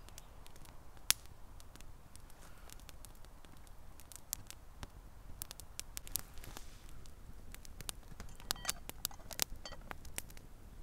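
Small wood campfire crackling with scattered sharp pops under a hanging cooking pot. Near the end a run of metallic clinks as the metal lid is set onto the pot hanging on its chain.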